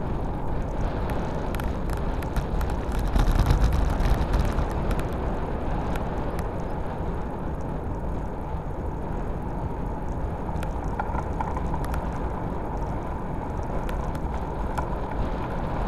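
Wind rushing over the microphone of a handlebar-mounted camera on a road bike rolling along asphalt, with tyre noise and scattered small clicks; the rush is loudest about three to four seconds in.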